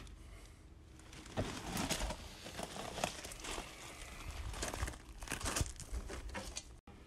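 Irregular rustling and crunching with scattered light clicks, from movement and handling close to the microphone.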